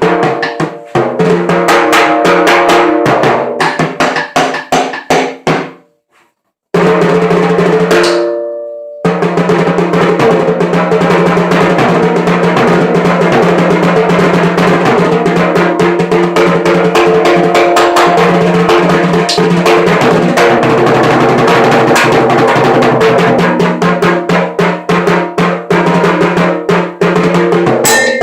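Drum kit being played: fast strikes with ringing drum tones, two short stops in the first nine seconds, then a long run of rapid rolls.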